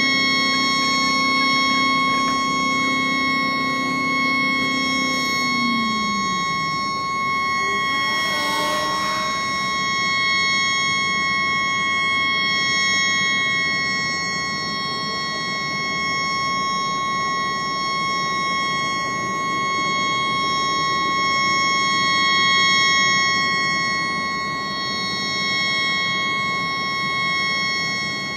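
A tugboat horn stuck on, sounding one continuous chord of several high steady tones over a constant hiss. The recording is sped up four times, which raises the pitch. A lower tone underneath glides down and stops about five seconds in, and a brief rushing sound passes about eight seconds in.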